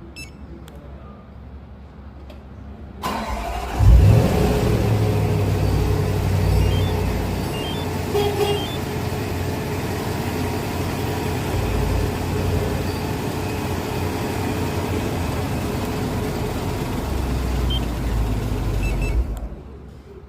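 Range Rover Sport SVR's supercharged 5.0-litre V8 starting about three seconds in, with a loud rev flare as it catches, then running steadily before shutting off suddenly near the end.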